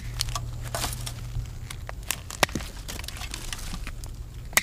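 Common buckthorn twigs and small branches being clipped and snapped off the trunk, with scattered sharp snaps and leaf rustling. The snaps come irregularly, with a louder one about two and a half seconds in and another near the end.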